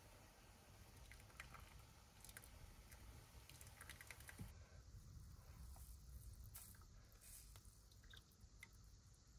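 Faint drips and small clicks as a wet cloth is lifted out of a small pot of hot water, under a low steady room hum.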